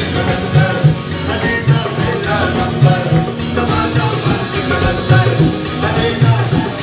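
Live band music: male vocals sung into microphones over strummed acoustic guitar and drums, with a steady beat.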